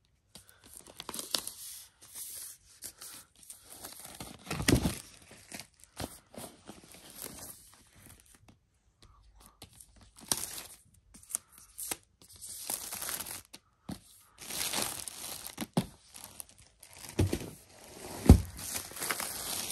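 Clear plastic shrink wrap being torn and peeled off a cardboard box, crinkling and crackling in irregular bursts. Two low thumps, about five seconds in and near the end.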